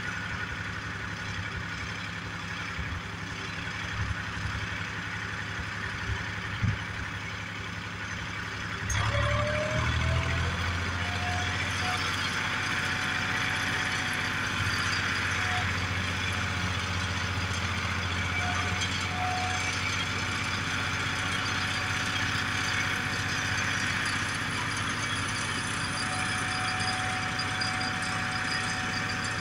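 Engine of a 1962 Priestman Cub 5 crane running steadily with a few clanks, then about nine seconds in it speeds up and grows louder with a rising whine, and runs on steadily as the crane hoists a concrete block off a flatbed trailer.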